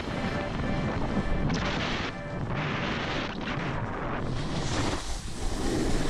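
Wind rushing over an action camera's microphone and a snowboard sliding and scraping over packed snow on a downhill run: an uneven, low, noisy rush.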